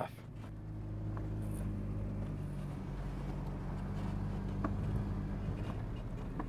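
Pickup truck driving slowly along a sandy dirt track: a steady low engine drone with tyre noise on sand and a few faint clicks.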